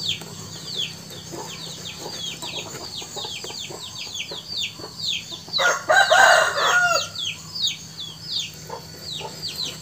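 Chicks peeping: a constant run of short, high, falling peeps, several a second. About six seconds in, an adult chicken gives one louder call that lasts about a second.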